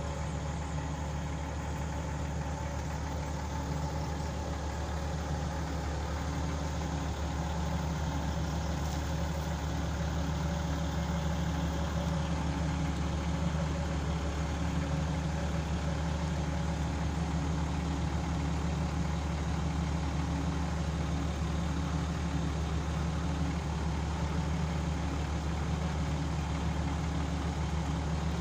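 Hitachi Zaxis excavator's diesel engine idling steadily.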